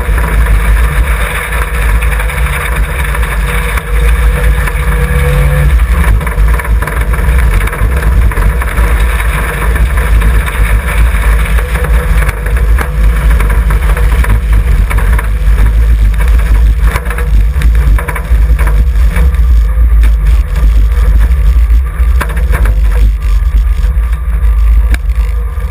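Interior sound of a stripped Mitsubishi Sigma's four-cylinder engine running as the car is driven on dirt, heard through the open, glassless window frames with wind and road noise. In the later part there are scattered knocks and rattles from the bare body.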